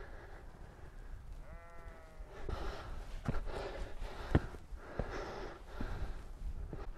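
A sheep bleats once, briefly, about one and a half seconds in. After that come a walker's footsteps on rocky, grassy hillside, with sharp scuffs and knocks, and a rhythm of breathing as he climbs.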